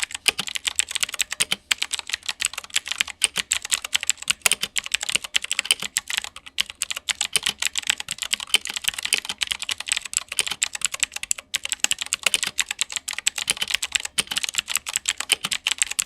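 Fast, continuous typing on a Gamen Titan III 60% mechanical keyboard with Outemu blue clicky switches, dense sharp clicks. The case has no foam, so the sound profile is hollow, and the switches are scratchy with some pinging.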